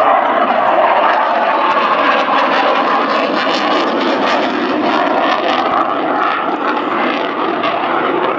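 Twin Klimov RD-33 turbofans of a MiG-29 Fulcrum fighter running in afterburner in flight: a loud, steady jet noise.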